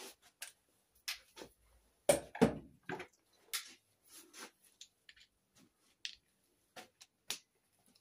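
Wrench and socket clinking and knocking on the engine's cylinder head bolts as they are loosened in turn: scattered sharp metallic clicks, the loudest pair about two seconds in.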